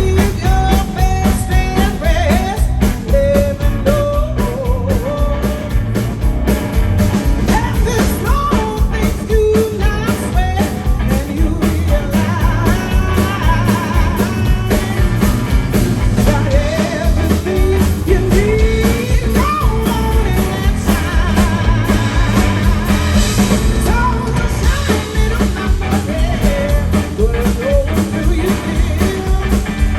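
Live blues band playing, loud and steady, with a lead melody line that bends and wavers in pitch over a steady beat and heavy bass.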